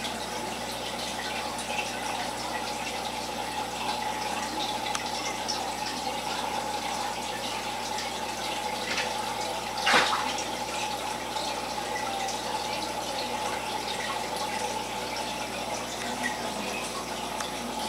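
Aquarium water circulation: steady running, bubbling water from the tank's filter and air line. One brief, sharp, louder sound comes about ten seconds in.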